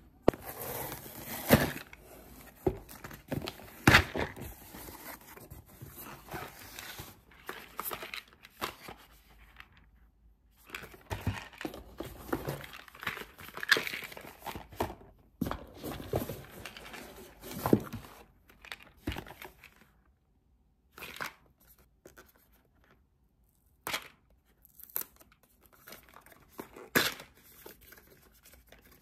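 Cardboard and paperboard packaging being handled: a shipping box unpacked and small paperboard product boxes picked up, knocked together and their tuck flaps pulled open, giving uneven runs of tearing, rustling and tapping with short pauses about a third and two thirds of the way through.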